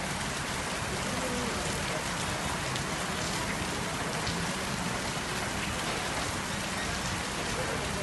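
Steady rain falling on a wet street, an even, unbroken hiss.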